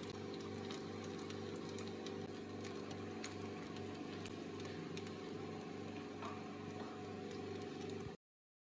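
Steady mechanical hum of a small motor, with a low throb pulsing about three times a second and a few faint clicks. It cuts off suddenly near the end.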